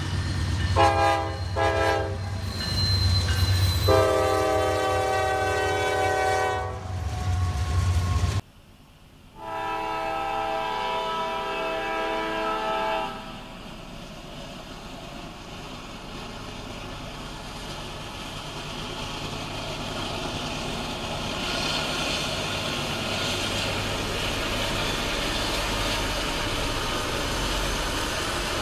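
Norfolk Southern diesel freight locomotive sounding its multi-chime air horn at a crossing: two short blasts, then two long ones, over the low hum of the engine. The horn is followed by the steady rolling noise of the train passing on the rails.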